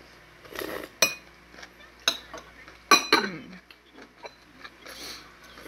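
Metal spoon clinking against a soup bowl, three sharp clinks about a second apart, with softer eating and scraping noises between them.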